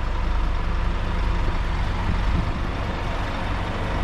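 Scania N250UD bus's diesel engine idling steadily, a constant low drone.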